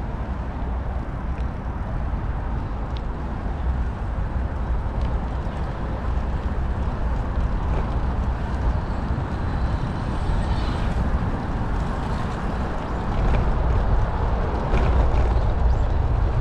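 Wind buffeting the microphone with tyre and road noise from a moving bicycle: a steady low rumble that grows louder near the end.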